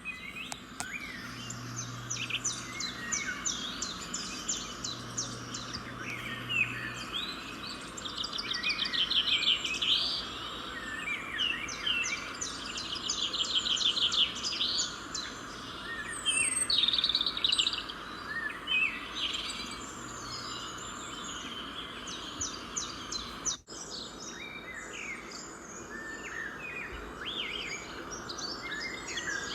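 A flock of small birds chirping and chattering over one another, with rapid trills and a brief break about two-thirds of the way through.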